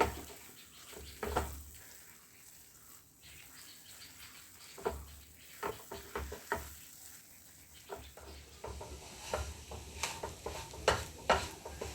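Ground turmeric and ginger frying in ghee on a low flame, sizzling faintly, while a spoon stirs and scrapes it around the pan. The scrapes come sparsely at first and grow busier in the last few seconds.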